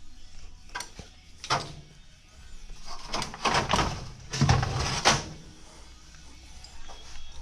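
Metal clanks and knocks from a Wilwood pedal assembly being worked loose and pulled out of a race car's chassis: two single knocks, then a longer rattling, scraping stretch with the loudest clanks near the middle.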